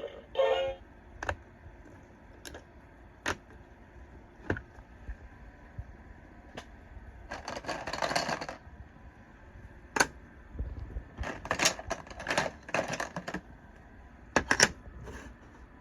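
Plastic toy pieces being handled: scattered sharp clicks and knocks, with a few short bursts of rustling and rattling.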